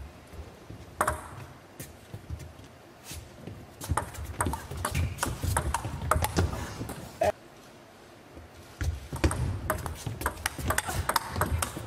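Two table tennis rallies: a plastic ball clicking off the rackets and the table in quick alternation. The first rally runs from about four seconds in to about seven seconds. After a short pause, a second rally starts near nine seconds.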